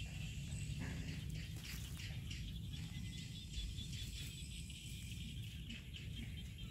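Many faint, short, high-pitched animal chirps over a steady low rumble.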